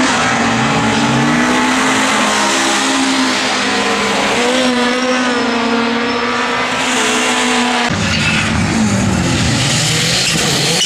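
Ford rallycross cars' engines revving hard through a corner, the pitch rising and falling with throttle and gear changes. About eight seconds in the sound changes abruptly as a different car takes over.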